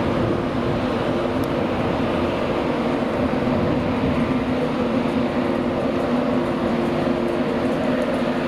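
LNER Class 91 electric locomotive hauling its train at low speed, giving a steady electric hum of several held tones over continuous wheel-on-rail noise.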